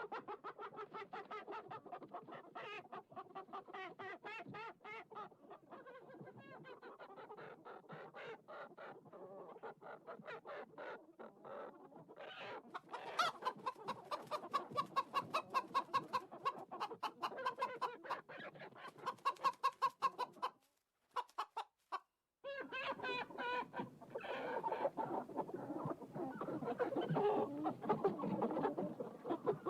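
A flock of chickens clucking, many short calls overlapping in quick succession. The sound cuts out for about two seconds roughly two-thirds of the way in, then the clucking resumes.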